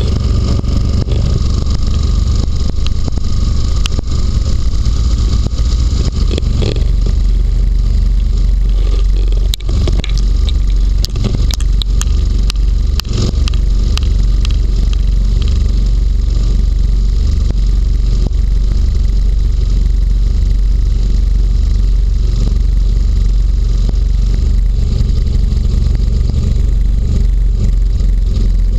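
Inflatable hovercraft's engine and lift/thrust propeller running steadily in a loud, deep rumble while it glides over snow. A run of short knocks and scrapes comes about a third of the way in, as the skirt passes over snow and dry grass stalks.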